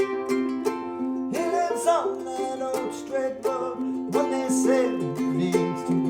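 Ukulele played clawhammer style: a steady, rhythmic run of plucked notes with a wavering melody line over it from about a second in.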